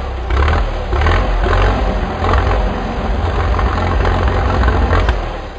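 Tractor engine running steadily, a deep sound with most of its weight very low.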